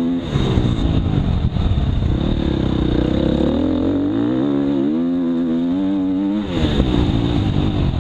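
Dirt bike engine under way, its pitch climbing steadily for a few seconds and then dropping sharply about six and a half seconds in, with a brief dip in the engine note just after the start.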